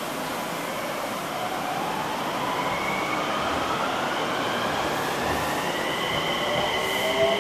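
Enshū Railway 2000-series electric train pulling away from a standstill. Its inverter-controlled traction motors give a whine that rises steadily in pitch as the train gathers speed, over the running noise of the train.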